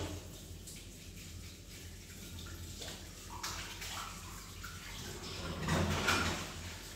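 Water running and splashing in a kitchen sink during washing up, with louder surges of splashing about three and a half seconds in and again around six seconds in.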